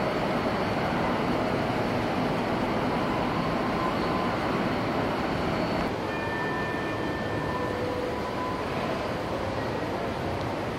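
Model passenger train rolling along its track, a steady running noise over the background noise of the exhibit hall. The sound drops slightly about six seconds in, where a few faint steady tones come in for about two seconds.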